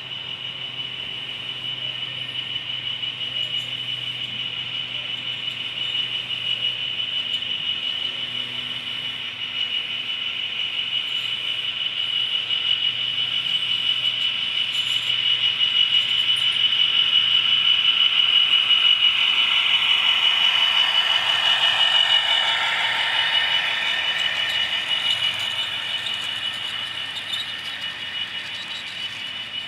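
OO gauge model class 66 diesel locomotive and its wagons running along the track, a steady high-pitched whine over a light rattle of wheels. It grows louder as the train comes near and passes close, then fades as it moves away.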